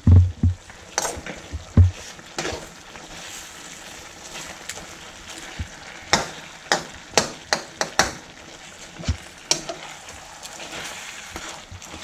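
Sweet and sour sauce sizzling in a wok as it simmers, with a metal spoon clinking and scraping against the wok while the fish and vegetables are stirred and basted. The clicks come in a quick run in the middle.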